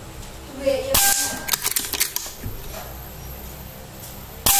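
Two shots from a Bocap Monolite 500cc PCP air rifle fitted with a silencer, the first about a second in and the second near the end. Each shot is followed by a short ringing tone, and light clicks and clatter come between the shots.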